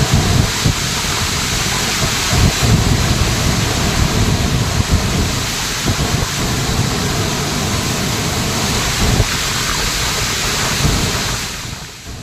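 Floodwater in a river in spate rushing over rocks: a loud, steady rush with a low rumble underneath, fading out near the end.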